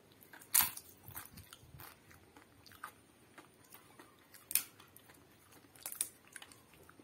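Crisp papad (fried lentil wafer) bitten and chewed close to the microphone: a sharp crunch about half a second in, then irregular crunching chews, with two more loud crunches over halfway through.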